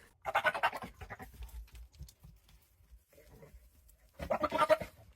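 A goat bleating twice, two short wavering calls about four seconds apart.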